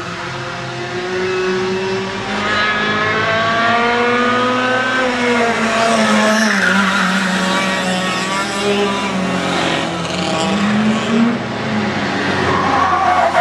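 Two racing karts accelerating down the straight and passing close by: their engine notes climb as they approach and drop away as they go past, with kart engines still running near the end.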